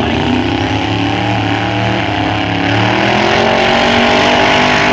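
Diesel drag-race engines at full throttle down the strip, their pitch climbing steadily as they pull away and then levelling off, with thick black diesel smoke pouring out.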